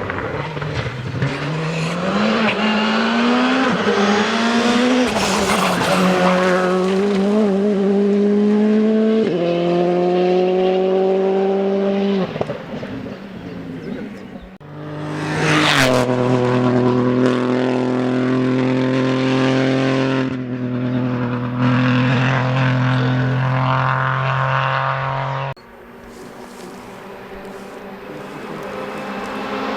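Rally cars at full throttle on a closed stage. Their engines climb through the revs with quick upshifts, and one car passes close by and loudly about halfway through. Then the sound cuts abruptly to another car approaching from further off.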